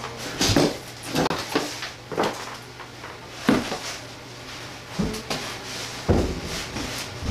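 Plywood subfloor sheet being handled and fitted over the floor joists, giving a series of irregular hollow wooden knocks and scrapes as it bumps the framing and the edge of the old floor.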